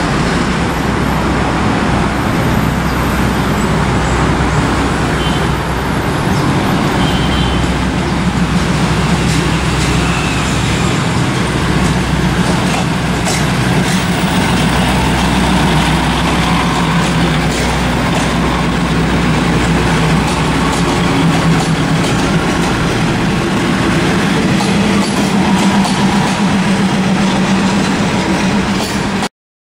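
Diesel railcar's engine running steadily: a low, even hum under a constant wash of noise.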